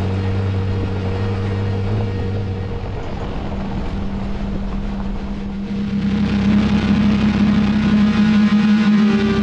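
Jeep Wrangler Rubicon driving on a wet gravel road, its engine running steadily, getting louder about six seconds in.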